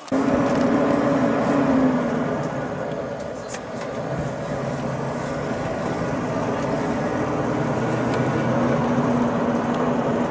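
Steady running noise of a moving vehicle with a low engine hum, cutting in abruptly at the start.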